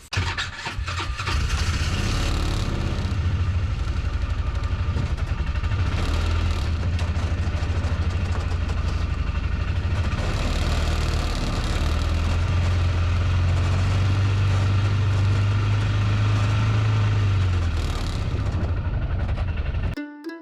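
A vehicle's engine running as it drives along, loud and steady, growing stronger for a stretch past the middle and easing off near the end.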